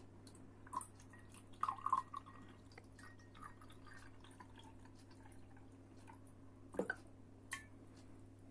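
Water poured from a glass jug into a drinking glass: faint trickling and splashing, with a few louder splashes about two seconds in and again near the end.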